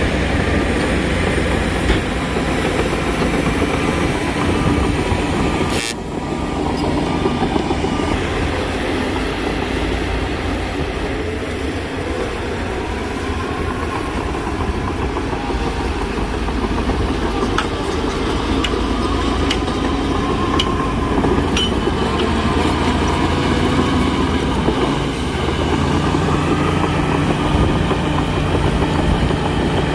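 Heavy earth-moving machinery at work, its diesel engine running steadily, with short dips in the sound about six seconds in and again near the end.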